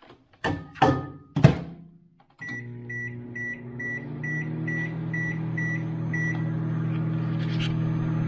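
A few knocks and clicks and a short beep as the microwave oven is shut and set. About two seconds in the microwave starts running with a steady low hum. Over the hum, a string of about ten short high beeps repeats at roughly two and a half a second for about four seconds.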